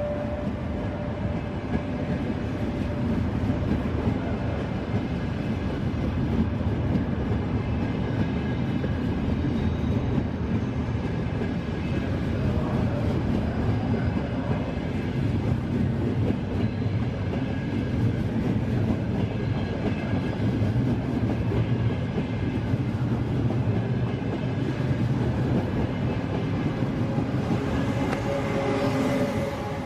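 Passenger train moving along the rails, a steady running rumble throughout, with a faint steady tone near the start and again near the end.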